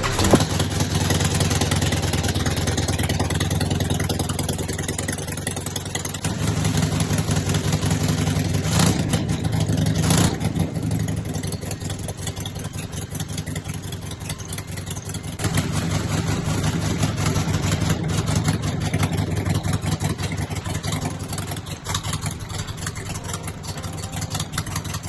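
2009 Thunder Mountain Cycles Spitfire chopper's V-twin engine running, getting louder about six seconds in, with two short throttle blips around nine and ten seconds, settling, then picking up again at about fifteen seconds. It is running well after sitting for a long time.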